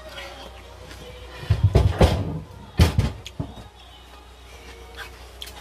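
Seasoned greens being tossed and squeezed by hand in a plastic basin, with a cluster of dull thumps about one and a half to two seconds in and another about three seconds in.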